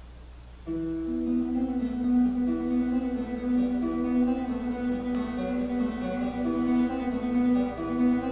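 Guitar music: plucked notes over a held low note, starting suddenly less than a second in after faint room hum.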